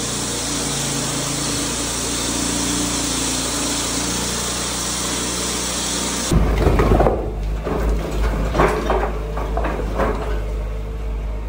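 Walk-behind gas-engine concrete floor saw running steadily as it cuts through a wet concrete slab. About six seconds in it gives way to a mini excavator's engine rumbling while its bucket scrapes and clunks against broken slabs of concrete, with repeated knocks.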